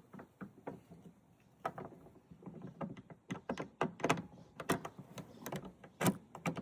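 A metal padlock being worked into a trailer's locking point, with irregular clicks and clanks of metal on metal. They grow quicker and louder in the second half.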